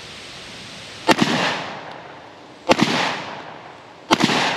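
Three shots from a Remington Model 11 12-gauge semi-automatic shotgun with a shortened barrel, firing light 12-gauge loads about a second and a half apart; each sharp report trails off in an echo.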